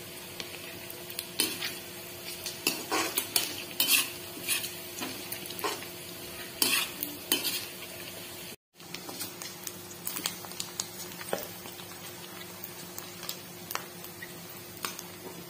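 A steel slotted spatula scrapes and clacks against a kadai as spiced pork is stirred and fried in oil, with a low sizzle under it. The sound cuts out for a moment a little past halfway.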